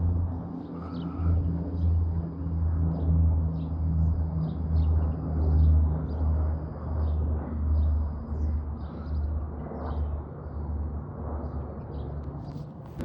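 A steady low engine rumble that swells and fades about once a second, with short high bird chirps above it.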